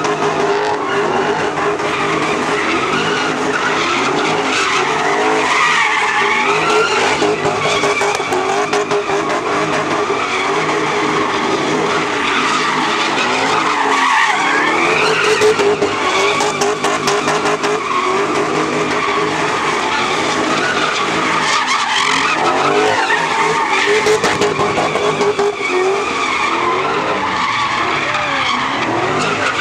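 Cars doing donuts and drifting, engines held at high revs with the pitch wavering as the throttle is worked, over continuous tyre squeal as the rear wheels spin on the asphalt.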